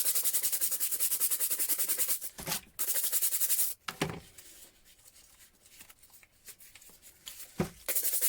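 Stiff brush scrubbing a wrench with quick back-and-forth strokes, in two bursts over the first few seconds, then quieter handling with soft knocks about halfway through and near the end.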